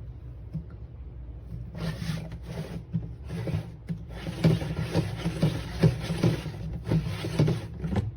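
Hard plastic pet-food storage container being handled: rubbing and scraping with irregular knocks, starting about two seconds in and stopping abruptly near the end.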